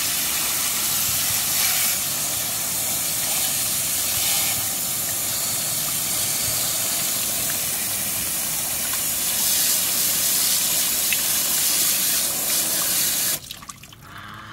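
Water jetting from a pistol-grip garden hose nozzle in a steady hiss, spraying into a plastic basket and over a plastic toy airplane held in the hands. The spray shuts off suddenly near the end.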